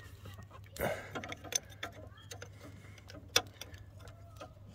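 Scattered metallic clicks and ticks of a spanner working a brake line fitting on an ABS pump, with one sharp click about three and a half seconds in.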